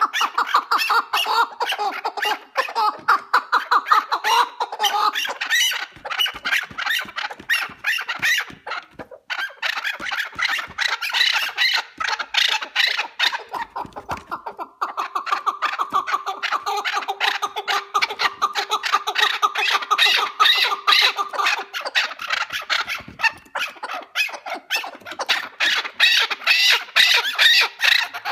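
Chukar partridge calling: a fast, continuous run of loud clucking notes, with short breaks about nine and fourteen seconds in.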